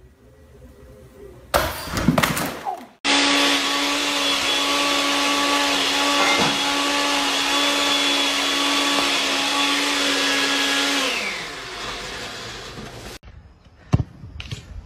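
An electric motor whirring steadily for about eight seconds, a rushing noise over a steady hum, then winding down in pitch and stopping. A short burst of noise comes just before it starts.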